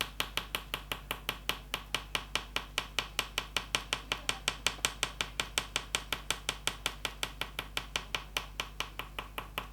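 Oil pastel stick tapping dots onto paper, a rapid even run of light taps at about five or six a second.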